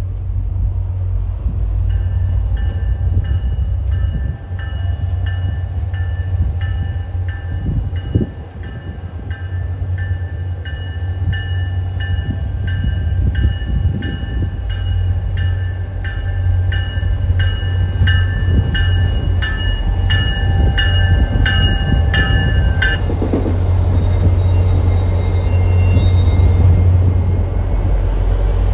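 Train rumbling by with a bell ringing about twice a second, which stops about 23 seconds in.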